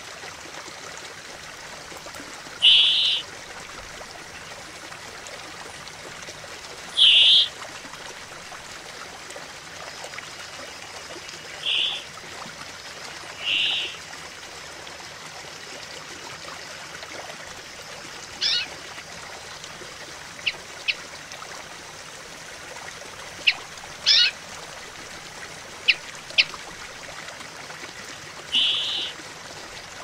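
Brambling singing: drawn-out buzzing notes about half a second long, repeated every few seconds. There are short sharp call notes in a cluster toward the middle, over the steady babble of a shallow stream.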